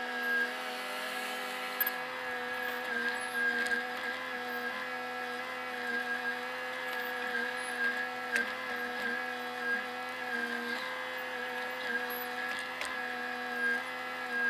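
Bobcat compact excavator's diesel engine running steadily with a hydraulic whine, heard from the operator's seat while it digs. The pitch sags briefly a few times under load, and there are a few faint clicks.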